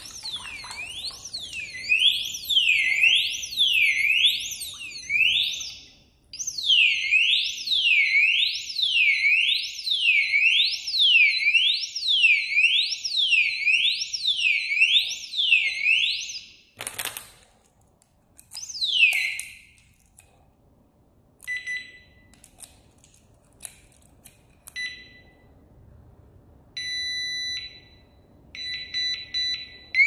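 Motorcycle alarm disc lock's siren wailing, its pitch sweeping down and up about one and a half times a second, still sounding after the lock has been submerged in water. It stops a little past halfway with a sharp knock, then gives scattered short beeps and chirps before the wail starts again at the end.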